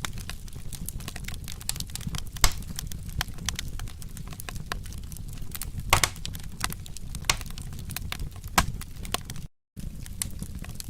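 Wood fire crackling, with a low steady rumble and irregular sharp pops, the loudest about two and a half and six seconds in. The sound cuts out for a split second about nine and a half seconds in.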